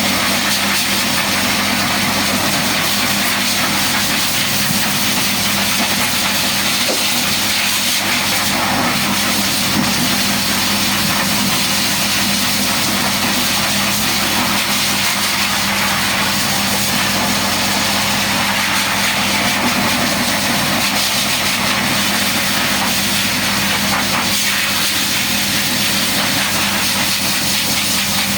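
A small electric motor running steadily for the whole stretch, a low hum under a loud, even hiss.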